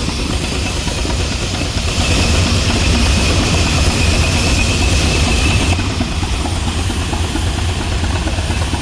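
Heavy antique farm engine running steadily with a deep rumble, as a parade of old steam traction engines and tractors goes by. From about two seconds in until nearly six seconds a brighter hiss with a thin steady high tone rises over it.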